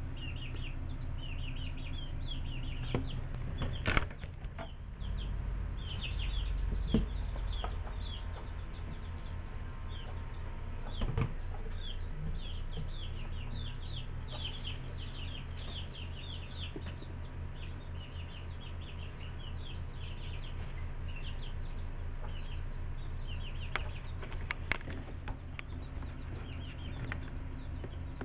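Many chicks peeping at once: a dense, continuous run of short, high, falling peeps. Under them is a low steady hum, with a few knocks, the loudest about four seconds in.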